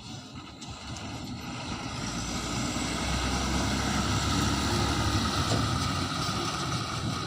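Heavy diesel engine running steadily, growing louder over the first few seconds and then holding.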